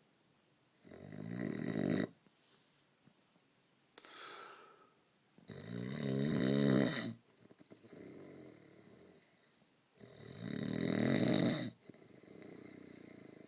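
Snoring: three long, loud snores about four and a half seconds apart, each swelling as it goes, with shorter, softer breaths between them.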